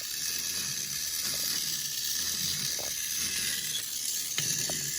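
Schylling tin wind-up robot toy walking, its clockwork mechanism making a steady whirring hiss, with a few faint clicks, two of them about three and four and a half seconds in.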